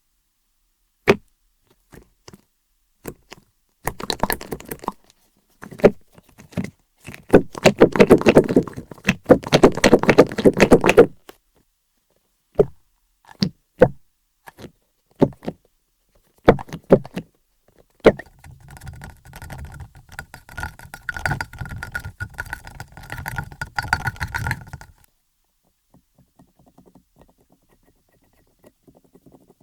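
Hands squeezing and handling a soft pop-out squishy toy: scattered taps and clicks, two dense bursts of squishing and crackling, and then a longer stretch of rubbing that carries a steady high tone and stops about three-quarters of the way through.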